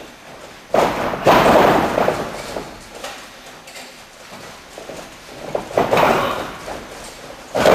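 Heavy thuds of wrestlers' bodies and feet hitting the boxing-ring floor, four in all, each followed by an echo in the hall; the loudest comes just over a second in.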